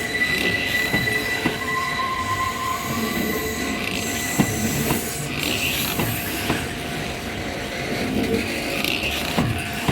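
Kintetsu 1021 series electric train passing close by, its wheels squealing on the rails in steady high tones, with irregular sharp clacks as the wheels cross rail joints. The sound eases slightly toward the end.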